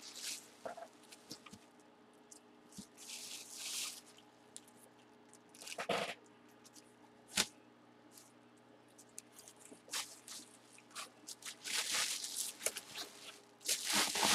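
Bubble wrap and plastic packaging crinkling and rustling in irregular bursts, with a few sharp crackles and clicks, as hands unpack an item from a cardboard box.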